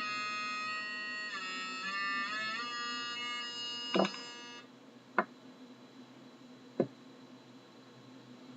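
Homemade 555-timer noise maker sounding a steady electronic buzz that jumps in pitch a couple of times, then cuts off about four and a half seconds in. Three sharp clicks come around the cut-off and after it.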